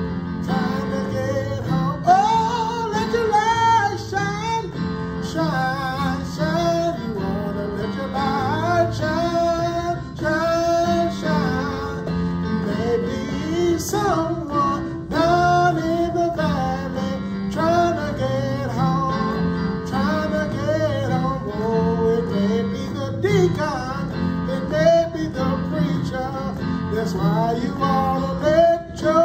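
A man singing a solo to his own electronic keyboard accompaniment.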